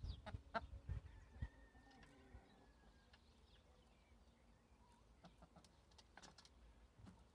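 Near silence with a few faint, scattered hen clucks and short calls, fading out after the first second, and a faint drawn-out whistled note in the middle.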